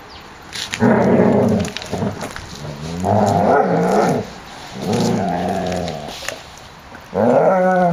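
Airedale Terrier puppies growling in play: four rasping growls, each about a second long, coming roughly every two seconds.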